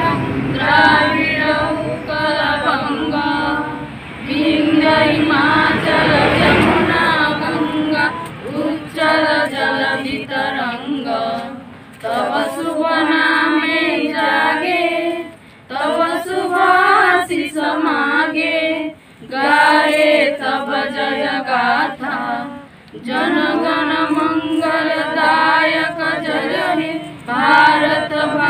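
A group of young women singing together in unison, in sung phrases broken by short pauses.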